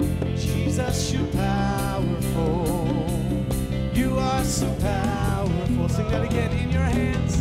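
Live worship song: a man sings with vibrato over his own Yamaha MX88 keyboard accompaniment and a steady beat.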